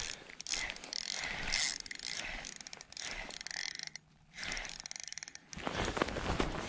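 A fishing reel being cranked in spurts about a second long with short pauses, its gears and anti-reverse clicking and whirring as a hooked lake trout is reeled in. Near the end, footsteps crunching on icy snow take over.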